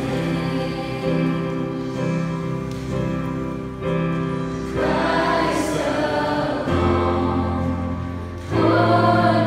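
A youth choir singing a worship song together over instrumental accompaniment with a steady bass line, the music swelling about five seconds in and again near the end.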